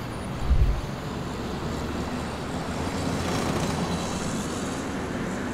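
Steady city traffic noise, a broad roar of passing vehicles, with a short low thump about half a second in.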